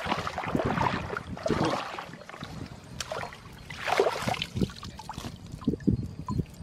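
Water splashing and pouring out of a net cage fish trap as it is hauled up from shallow muddy water, in several surges, the loudest about four seconds in. Fish flap inside the mesh, with short low knocks near the end.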